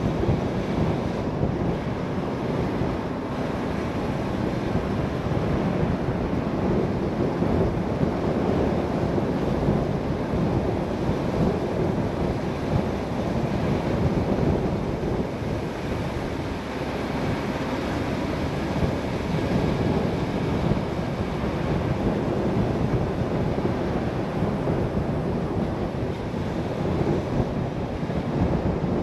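Road noise from a car driving along: a steady rush of tyre and wind noise with no break.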